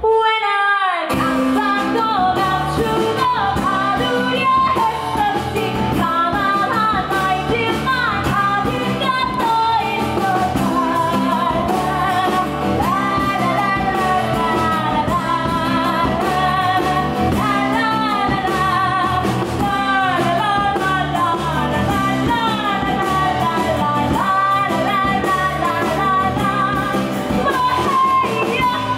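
Live band music: a woman sings lead into a microphone over keyboard and guitar, her held notes wavering with vibrato.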